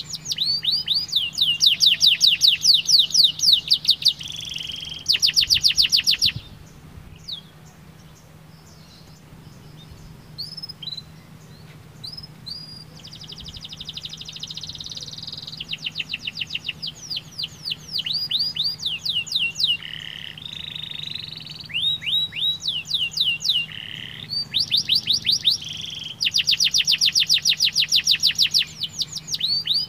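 Domestic canary singing: long rolls of rapidly repeated high notes, with a quieter stretch of scattered single notes in the middle before the fast rolls return.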